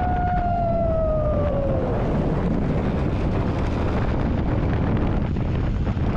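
Motorcycle riding at speed on a gravel track: steady wind rush on the microphone over the engine and tyres. A single held tone sinks slightly in pitch and stops about two seconds in.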